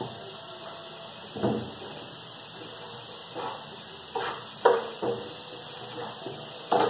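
Diced potato scraped off a wooden cutting board into a frying pan of ground meat, then stirred in with a spatula: several short knocks and scrapes of board and spatula against the pan over a steady hiss.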